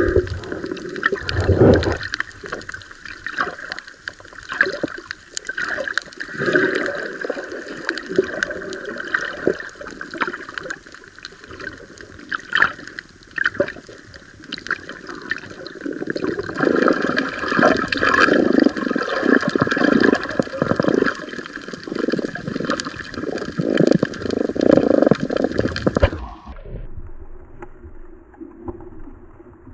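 Water gurgling and sloshing close around the microphone, in uneven surges. Near the end it turns quieter and muffled.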